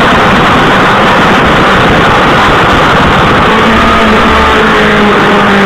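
Suzuki GSX-R1000 K7's inline-four engine running steadily under way at about 83 km/h, its note mostly buried under loud wind rush on the microphone.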